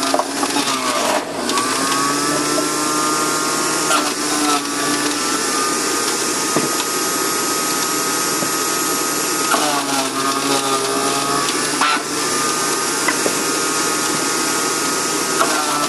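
Electric centrifugal juicer's motor running as carrots are pushed down the feed chute and shredded. Its whine drops in pitch as a carrot loads it, about a second in, near ten seconds and again at the end, then climbs back.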